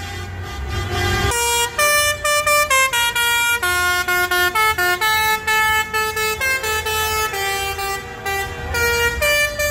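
A vehicle's musical horn playing a tune of short held notes that change pitch, over the low running of tractor engines in a slow-moving convoy.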